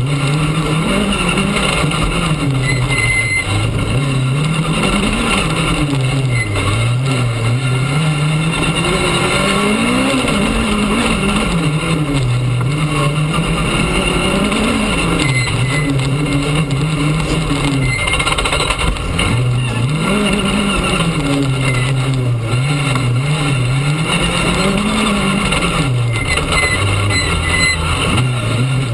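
Rally car engine heard from inside the cabin, its note climbing and dropping every few seconds as it accelerates and backs off, over steady tyre and gravel noise from the dirt track.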